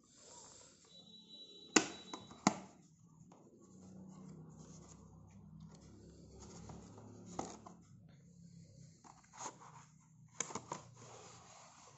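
A small cardboard earphone box being opened by hand: packaging rustling and scraping, with a few sharp knocks or snaps, the loudest two close together about two seconds in.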